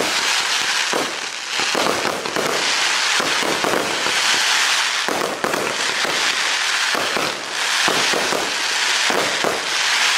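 Zena Crackling Willow, a 30-shot fan-shaped fireworks cake, firing its shots in quick succession. Repeated launch reports sit under a dense, continuous crackle from the crackling willow effects.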